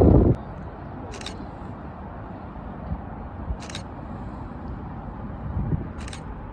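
Low wind rumble on the microphone, louder for the first moment and then steady. Short, high-pitched ticks come about every two and a half seconds, three times.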